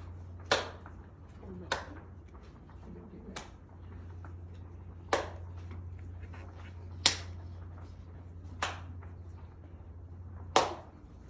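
Seven single hand claps at uneven intervals of one to two seconds, each a sharp crack. They are cue claps, each one a signal for the listeners to perform a simulated tic.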